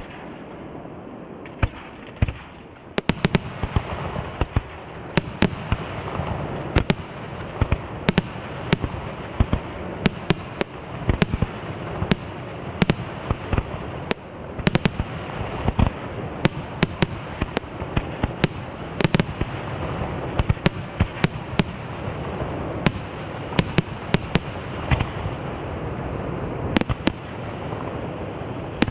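Aerial fireworks display: a dense continuous crackle of bursting stars, joined about three seconds in by rapid sharp shell bangs, several a second.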